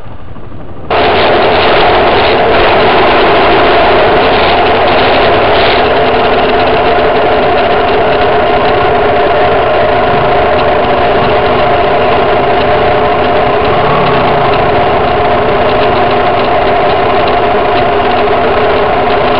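Trail motorcycle engine running at steady revs. It cuts in suddenly about a second in and stays loud and even.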